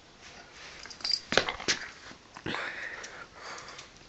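Belgian Malinois playing tug of war with a toy, making rough breathy dog sounds along with scuffling and a few sharp knocks and scrapes. The knocks come about a second in, with the noisier breathing stretch just past the middle.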